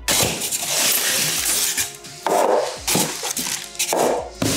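Polystyrene foam packing inserts rubbing and scraping against each other and the cardboard as they are lifted out of a box and set down: a long rustling scrape, then several shorter ones.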